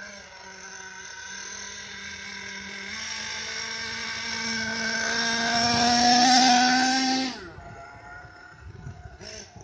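HPI Savage 4.6 RC monster truck's small nitro engine running at a steady high pitch, edging up in pitch and growing louder, then cutting off abruptly about seven seconds in.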